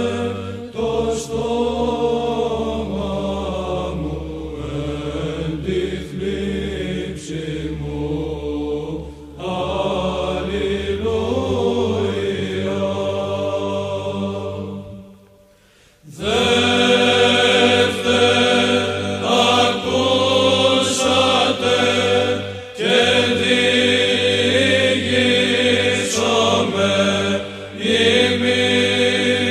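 Male monastic choir singing Byzantine chant in the plagal second mode, the melody held over a steady low drone. About halfway through it fades away briefly, then comes back in louder.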